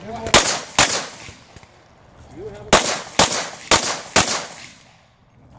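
Pistol shots in a practical-shooting string: two shots about half a second apart, a pause of about two seconds, then four more at an even pace of about two a second.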